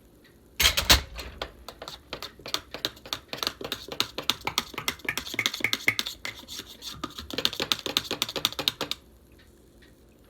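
A spoon stirring chocolate in a cup, clinking rapidly against the sides, several strikes a second. It starts with a loud knock and stops abruptly near the end.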